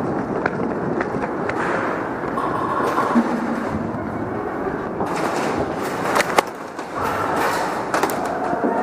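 Continuous scuffing and rumbling noise of players moving across an indoor airsoft arena. A few sharp clicks or pops come through it, the sharpest about six seconds in.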